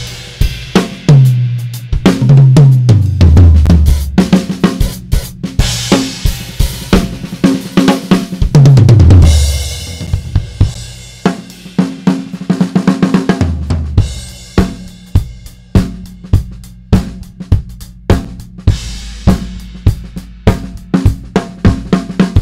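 Sonor Designer drum kit with a Sonor cotton-wood snare, close-miked and unprocessed: tom fills run down the kit, falling in pitch, with cymbal crashes, then settle into a steady groove on snare, bass drum and hi-hat. Partway through, the recording switches from an Audix DP7 mic set to a Shure PG mic set with an SM57.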